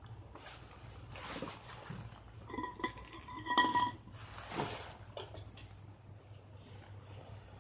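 Metal cookware and utensils clinking and being handled while coffee is made over a campfire, with one clear ringing clink about three seconds in.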